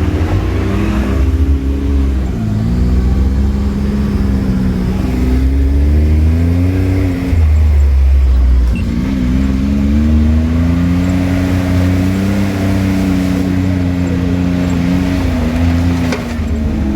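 Can-Am Maverick X3 side-by-side's turbocharged three-cylinder engine running under load while driving off-road. Its pitch rises and falls with the throttle, easing off briefly about two seconds in and again around nine seconds in.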